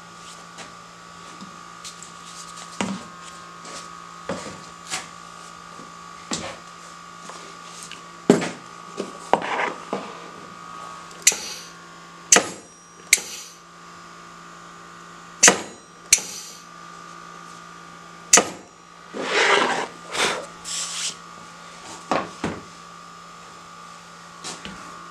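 Homemade pneumatic press being cycled with its hand-lever air valve: sharp clunks as the air cylinder drives the pressing plate and the valve snaps over, and short hisses of compressed air venting. A steady hum runs underneath.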